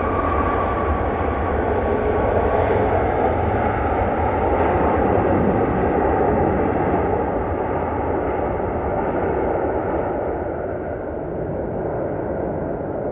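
Boeing 737 jet engines running loud during the landing rollout. A high whine fades out within the first second, then a broad rushing roar swells a few seconds in and gradually eases as the airliner slows.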